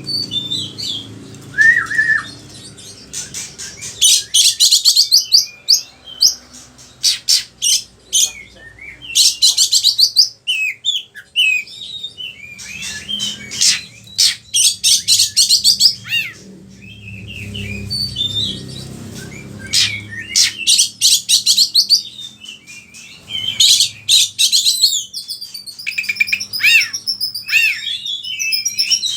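Oriental magpie-robin (kacer) singing in full voice: a varied song of very fast rattling trills and high sliding whistles and chirps, its phrases mixing borrowed calls of other birds.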